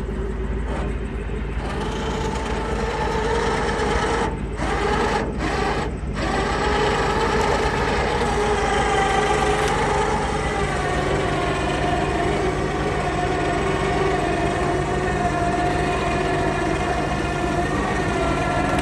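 Chainsaw engine running steadily, its pitch wavering slightly, with a few brief dips between about four and six seconds in.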